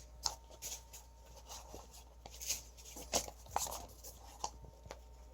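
Gaming mats being handled: faint, irregular rustles and soft taps as they are shifted and turned over, with a few slightly louder ones around the middle.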